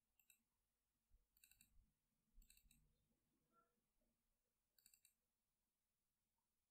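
Near silence broken by faint computer mouse clicks in four short clusters of a few clicks each, the later ones about a second apart and the last near the five-second mark.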